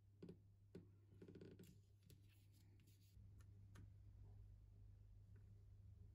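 Faint paper handling: a cut-out photo being placed and pressed down onto a kraft paper envelope, with soft rustles and a few light taps, over a low steady hum.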